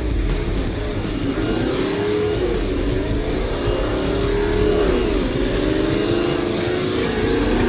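Simulated V8 engine sound from an RC drift car's onboard sound unit, revving up and down over and over as the car drifts, with background music.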